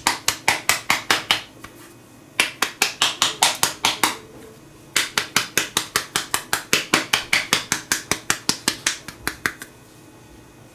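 Hands patting a ball of soft dough flat between the palms: quick, even slaps, about five or six a second, in three runs with short pauses between them.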